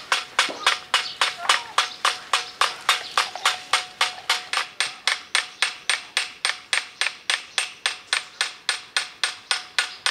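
Scythe blade being peened with a hammer on a small peening anvil: steady hammer blows on the steel edge, about four a second, each with a light metallic ring.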